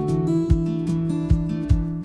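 Background music with a steady beat under sustained pitched notes.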